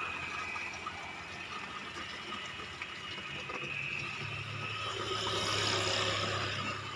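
Road traffic: a motor vehicle's engine running steadily, growing louder to a peak about five to six seconds in and easing off near the end.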